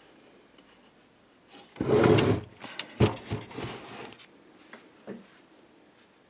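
Handling noise: a rough scrape or rub for about half a second, then a sharp knock about a second later, followed by a few lighter knocks and rubs and one last small knock.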